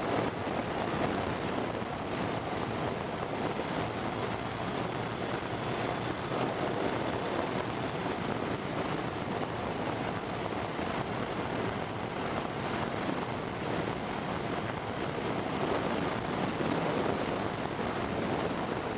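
Steady rush of wind over the microphone of a motorcycle riding at road speed on a blustery day, with road and tyre noise mixed in.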